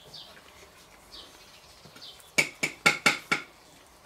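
Metal knife and fork clinking against dishes, five quick ringing clinks a little past midway. A bird chirps faintly, a few short calls falling in pitch.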